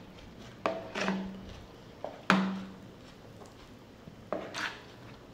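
A spoon and a chicken bone clinking against a plate as food is scraped and picked over. Several sharp clinks, the loudest a little past two seconds in, the strongest leaving a short low ring.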